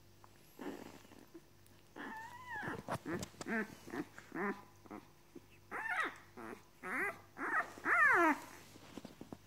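Newborn puppies whimpering and squeaking: a run of short, pitched cries starting about two seconds in, the last one sliding down in pitch.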